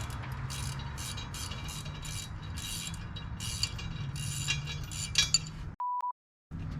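Ratchet wrench clicking in short repeated rattles, about three a second, over a steady low hum. Near the end the sound cuts out and a short high beep sounds.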